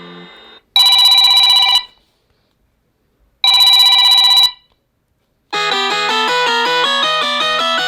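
Samsung Galaxy Note 20 Ultra ringtones: a tune fades out, then a telephone-bell-style ring sounds twice, each about a second long with a gap between. A new melodic ringtone of quick, rapidly changing notes starts about five and a half seconds in.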